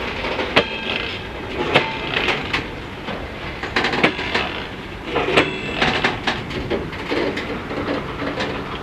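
Freight train wagons rolling past slowly, wheels clanking irregularly over rail joints, with short ringing metallic squeals under a steady rumble.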